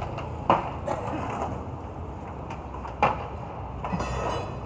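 Demolition debris (scrap wood and corrugated roofing sheets) being thrown down onto a pile: two sharp clattering impacts, about half a second in and again about three seconds in, then a short rattle near the end, over a steady street rumble.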